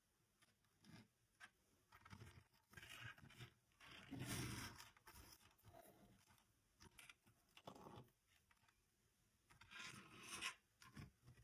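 Faint rustling and rubbing of paper cutouts being pressed and slid across a cutting mat by hand, in a few short strokes, loudest about four seconds in and again near the end.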